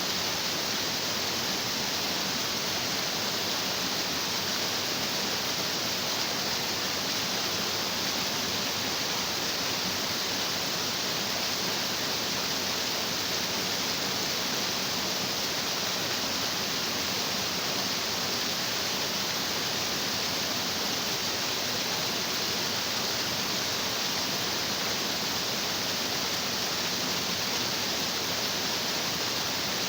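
Stream of water rushing over rocks, an unbroken, even rush that holds the same level throughout.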